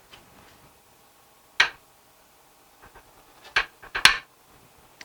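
Metal tools and parts clinking on a workbench: one sharp clink about a second and a half in, then three more close together near the end.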